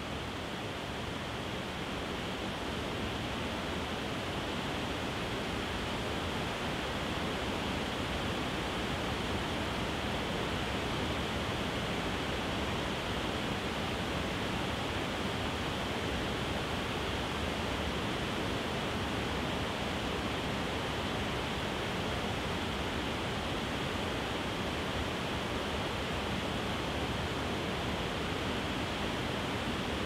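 Waterfall cascading over a series of rock ledges: a steady, even rush of falling water that swells slightly over the first few seconds, then holds.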